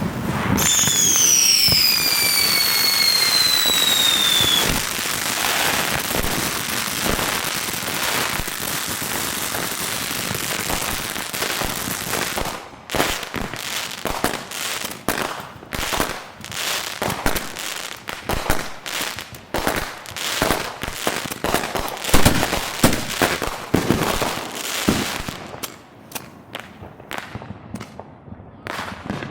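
Consumer fireworks going off: a whistle falling in pitch in the first few seconds, then dense crackling, then a rapid run of sharp bangs that thins out near the end.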